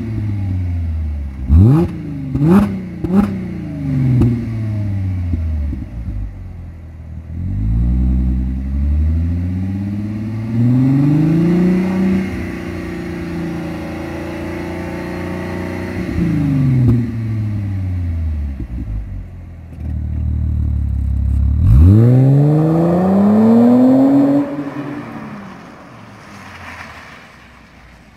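Audi A6 3.0 TFSI supercharged V6 through a Supersport duplex sport rear muffler, revved: three quick blips in the first few seconds, then a slower rev held high for several seconds and let fall back to idle. About 22 seconds in it rises in one long sweep, then the sound fades as the car moves off.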